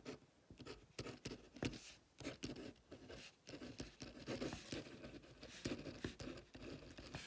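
Pen scratching on paper while a line of words is handwritten: quick, irregular strokes, faint and close.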